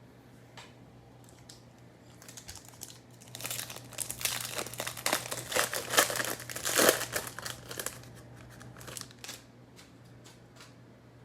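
Foil wrapper of a Topps Chrome trading-card pack crinkling and being torn open, loudest in the middle few seconds.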